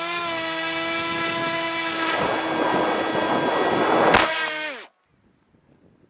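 Bixler RC plane's electric motor and propeller whining at a steady pitch when throttled up, with a sharp click about four seconds in; the pitch then drops as it spins down and cuts off abruptly just before five seconds in.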